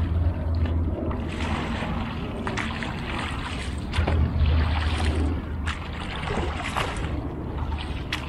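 Double-bladed kayak paddle dipping and splashing in the water, about six strokes one to one and a half seconds apart, over a steady low rumble of wind on the microphone.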